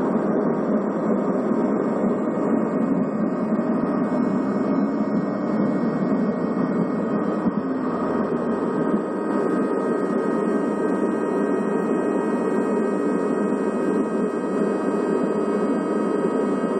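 Jet airliner's turbofan engines at takeoff power, heard inside the cabin beside the wing: a loud steady rush of noise with several steady whining tones over it, through the takeoff roll and climb-out.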